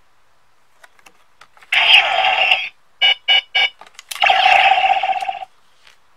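DX Decadriver toy transformation belt playing its electronic sound effects as a card is read: a few light plastic clicks, a loud electronic sound of about a second, three quick beeps, then a second loud electronic sound of about a second.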